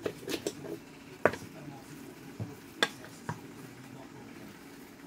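A utensil knocking and clinking against a stainless steel mixing bowl while butter is scooped onto cooked spaghetti, about half a dozen short sharp knocks, the loudest about a second in, dying away for the last second and a half.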